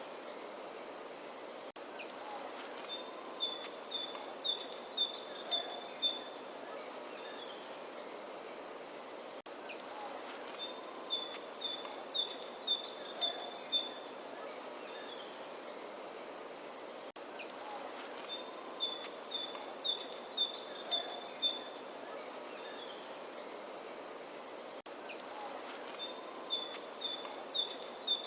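A songbird repeating the same phrase four times, about every eight seconds: a quick falling run of high notes, then a string of short notes alternating between two pitches. A steady faint hiss lies underneath.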